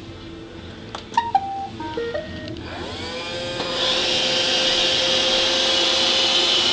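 Roomba robot vacuum giving a short run of electronic beeps, then its vacuum motor spinning up with a rising whine and running steadily with a loud hiss.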